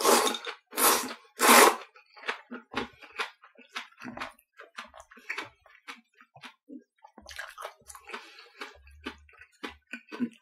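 Udon noodles slurped loudly three times in quick succession, each a short hissing suck, followed by a man chewing with many small wet clicks and smacks.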